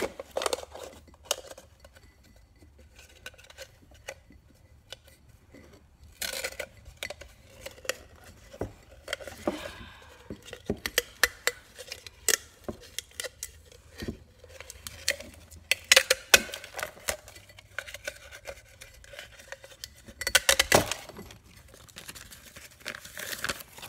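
Paper stencil being peeled and crinkled off a clear drinking glass, in a few short rustling bursts, with scattered taps and clinks as the glass is turned and set down on a wooden table.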